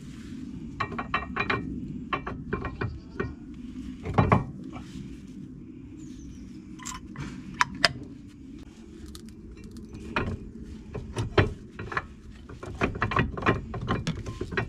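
Irregular metallic clinks and knocks of new brake pads being seated in the caliper carrier and the brake caliper being fitted back over them, with a louder knock about four seconds in.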